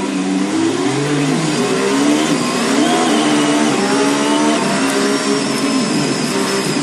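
Onboard sound of a Formula 1 car's engine accelerating hard. The engine note climbs in pitch and drops back several times as it runs up through the gears.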